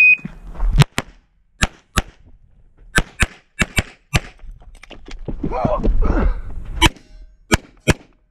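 A shot timer beeps once, then a CZ Shadow 2 9mm pistol fires about a dozen shots, mostly in quick pairs, with a pause of a couple of seconds in the middle filled by a softer rustling noise.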